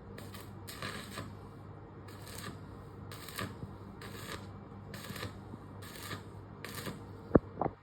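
Short bursts of electric arc-welding crackle, about one a second and each a fraction of a second long, as in stitch or tack welding, over a steady electrical hum. Near the end come two sharp metallic knocks.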